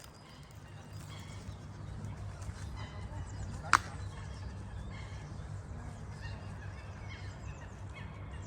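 Water birds calling faintly and repeatedly over a steady low rumble, with one sharp click a little under four seconds in.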